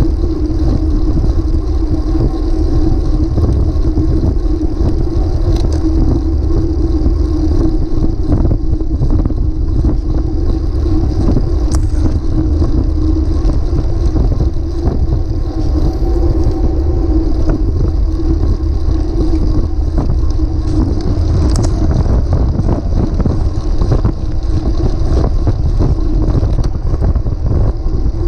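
Wind rushing over the microphone of a bicycle-mounted camera, mixed with the steady rumble and hum of the bike's tyres rolling on asphalt.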